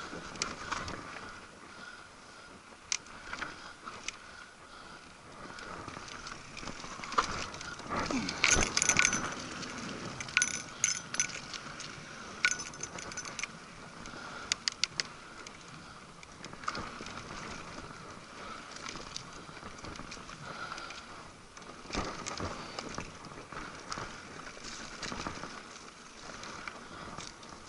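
Mountain bike rolling over a dirt singletrack trail: steady tyre noise with metallic rattling and clicking over bumps. The rattling is busiest about a third of the way in.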